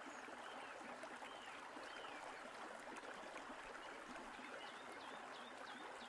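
Faint forest background recording: a steady running stream, with a few short bird chirps, a quick run of them near the end.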